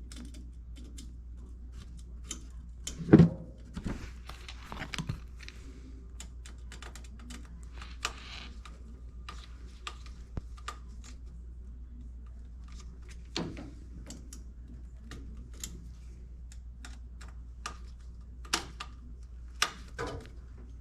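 Small irregular clicks and taps of hand work on furnace control board wiring, as thermostat wires are fitted to the board's terminals, with one louder knock about three seconds in, over a steady low hum.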